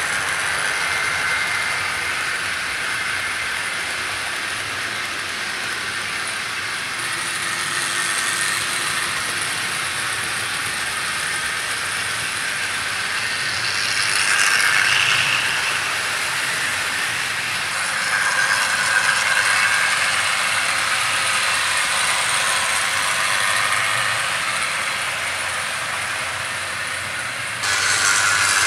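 00 gauge model steam locomotives of the Bulleid Pacific class running along the track, their electric motors whirring and their wheels rattling over the rails in a steady run. It grows louder about halfway through as a locomotive passes close by.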